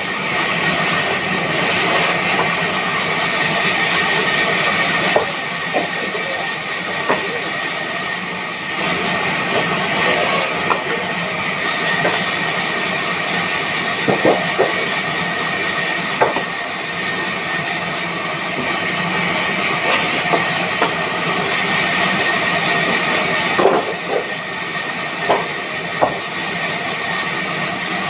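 Sawmill machinery running steadily, with a constant high whine and hiss and scattered short knocks and clatters.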